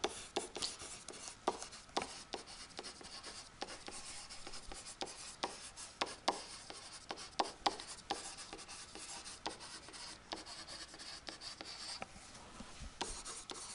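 Stylus writing on a tablet: light scratchy strokes with irregular sharp taps as words are written out by hand.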